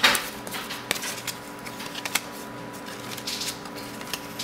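Trading cards handled and flipped through by hand: light, irregular clicks and rustles of cardstock as one card is slid off the stack onto another.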